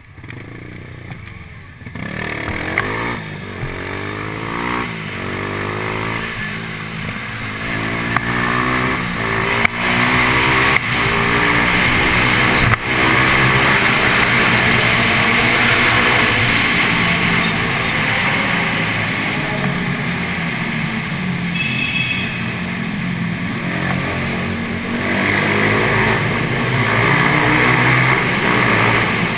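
Motorcycle engine pulling away and accelerating, its pitch climbing again and again through several gear changes, then running steadily at speed through a road tunnel.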